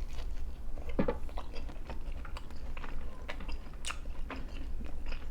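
A person biting into and chewing a slice of BBQ chicken pizza, a run of small clicks and crackles with a stronger bite about a second in.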